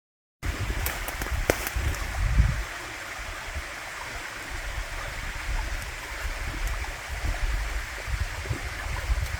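Steady rushing of flowing water, like a forest stream, starting abruptly after a brief silence, with uneven low rumbles and a few faint clicks in the first couple of seconds.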